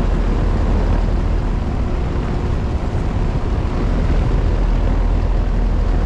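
Trane XR12 heat pump outdoor unit running in cooling mode with its coil iced over: a steady rush of the condenser fan with a deep rumble underneath.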